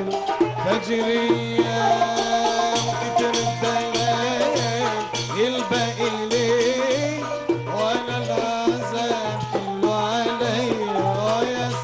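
Live Arabic ensemble music: a riq's jingles and frame-drum beats keep a steady rhythm, about two beats a second, under a wavering, ornamented melody line.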